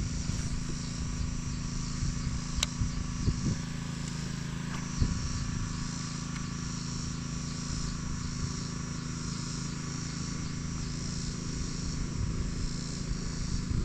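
Steady high insect chirring over a constant low hum, with one sharp click a few seconds in.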